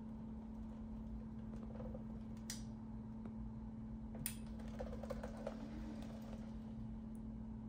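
Steady low electrical hum with light clicks and taps of small hard parts being handled: a sharp click about two and a half seconds in, another a little after four seconds, then a quick run of soft taps.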